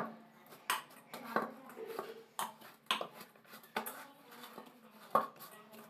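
Hands kneading soft wheat-flour dough in a stainless steel bowl: irregular dull knocks and slaps as the dough is pushed and pressed against the bowl, about two a second.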